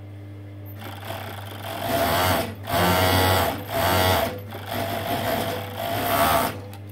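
Juki MO-6714S four-thread industrial overlocker stitching a seam in knit fabric. It runs in several short bursts with brief stops between them, over a steady low hum.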